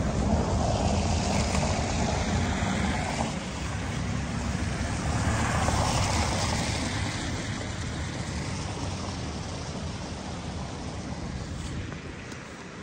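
Two cars driving past on a wet street, their tyres hissing on the wet surface: the first right at the start, the second about six seconds in. After that the sound fades away.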